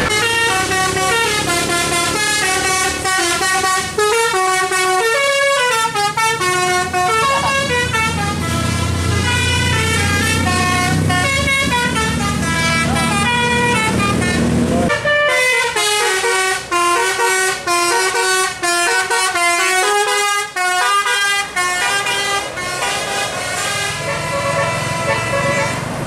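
A bus's Basuri telolet musical air horn playing a fast melody of short stepped notes, over the low running of the bus's engine, which cuts off suddenly about halfway through while the tune carries on.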